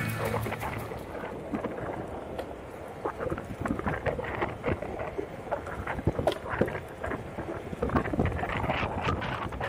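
Onewheel electric board rolling along an asphalt path: steady road noise with many irregular small clicks and knocks, and wind buffeting the microphone.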